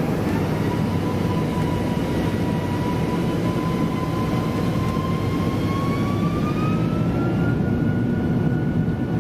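Boeing 747-400's Rolls-Royce RB211 turbofan engines heard from inside the cabin near the wing: a steady jet rumble with a fan whine that rises in pitch about six seconds in and then holds, as the engines spool up for the takeoff roll.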